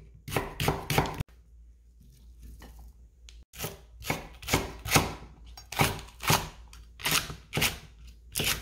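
Chef's knife slicing onion on an end-grain wooden cutting board, a few quick strokes, then after a short pause steady slicing of a Korean green onion (daepa), the blade tapping the board about twice a second.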